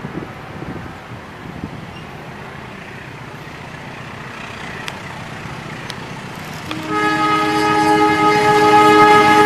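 Diesel locomotive hauling a passenger train approaches with a steady engine rumble; near the end its chord horn sounds and holds, growing louder as the train nears.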